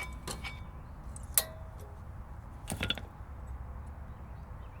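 Steel brake pads and their retaining clips clinking as they are pulled from a front brake caliper bracket: three sharp metallic clinks with a brief ring, the last a short clatter.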